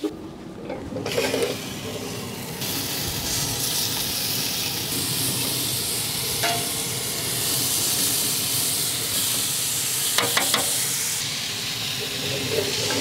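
Oil-marinated chicken pieces sizzling on the hot grates of a pellet grill over direct flame: a steady hiss, with a few sharp clicks about ten seconds in.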